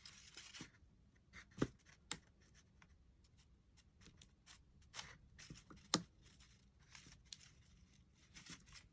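Packaging being handled in an unboxing: paper rustling near the start and end, with scattered sharp taps and clicks, two of them louder at about one and a half and six seconds in.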